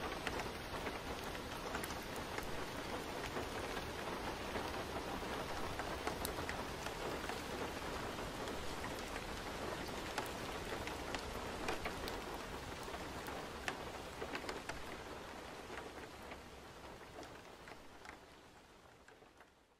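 Steady rain falling, with many scattered drop ticks, fading out over the last several seconds.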